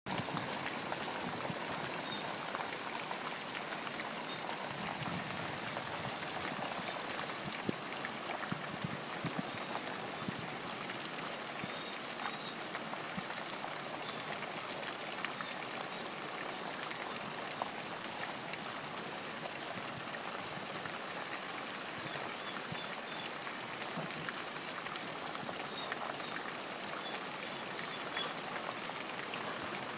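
Steady rain falling: an even hiss of rainfall with many close drops ticking, and a brief surge of brighter hiss about five seconds in.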